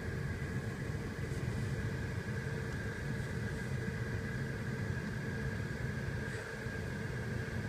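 Car engine idling, heard from inside the cabin: a steady low rumble with a faint, even hum above it.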